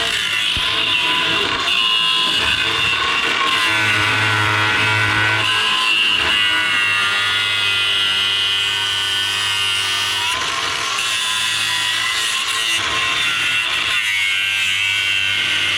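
Reciprocating saw (Sawzall) cutting through a steel cab-mount bolt: a steady motor hum under a screech of blade on metal that wavers in pitch.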